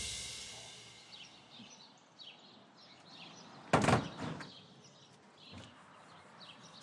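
Birds chirping over quiet outdoor background, and about four seconds in a front door shutting with a single loud thud.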